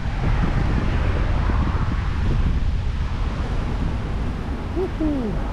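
Wind buffeting the microphone: a steady, loud, low rumble with no clear tone.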